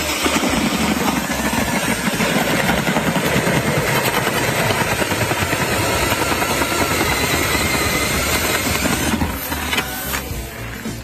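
Powered ice auger running as it bores through the ice, a steady churning motor-and-cutting noise; the motor stops about nine seconds in as the auger breaks through and is pulled out.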